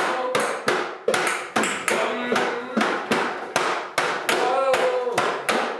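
Improvised hand percussion on bongos and household objects such as chairs, a wall and a glass jar, struck in a steady run at about three hits a second, each hit ringing briefly. A voice sounds pitched notes over the beat.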